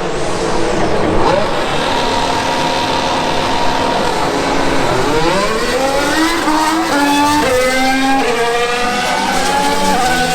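Formula 1 car's turbocharged V6 accelerating hard away from a practice start. A steady engine note for about four seconds, then a climbing pitch broken by quick upshifts, roughly one a second, from about five seconds in.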